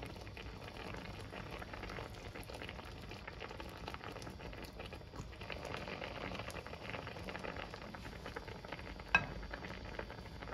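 Pork ribs and onions simmering in liquid in a frying pan: a steady bubbling with fine crackling pops. A sharp clack of a utensil against the pan comes near the end.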